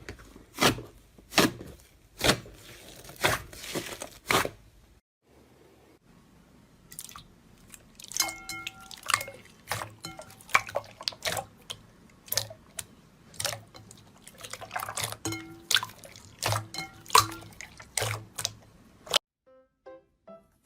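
Slime being squeezed and poked, making sharp wet pops and clicks, about one a second at first, then more irregular after a short pause.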